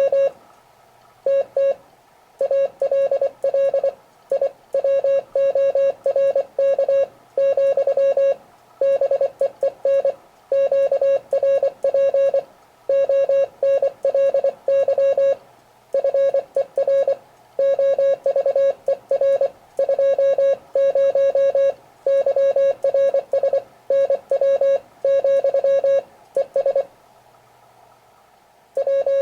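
Morse code (CW) sent as a steady single-pitch beep, keyed quickly in dots and dashes, with short pauses between groups.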